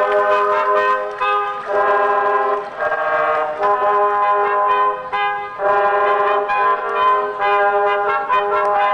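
Brass-toned music playing a slow tune of held chords that change every second or so, with short breaks between phrases.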